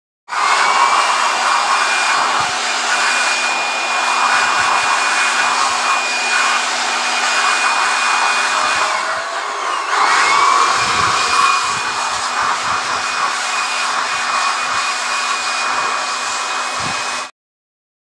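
An electric air blower runs steadily with a high whine, blowing out the chainsaw engine after it has been cleaned with petrol. About nine seconds in, the motor sags and then spins back up. The noise stops abruptly near the end.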